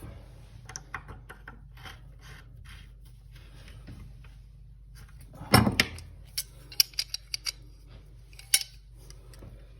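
Small metal clicks and scrapes as faucet parts and hand tools are handled while a bonnet nut is put back on the faucet. There is one louder knock about halfway through, followed by a few sharp clinks.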